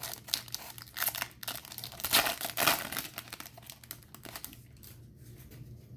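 A 2018 Bowman Chrome foil card pack being opened: the wrapper crinkles and tears in a run of crackling rustles that dies down after about four seconds.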